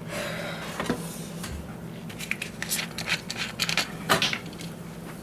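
Light handling noises: a run of small clicks and rustles, thickest from about two to four and a half seconds in.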